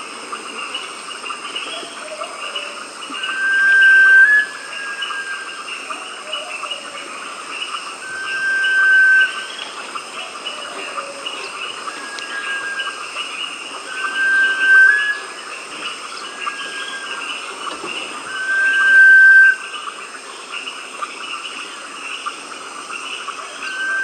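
Sunbittern singing: a long, level, pure whistle that swells and turns up slightly at its end, repeated about every four to five seconds, over a steady background chorus.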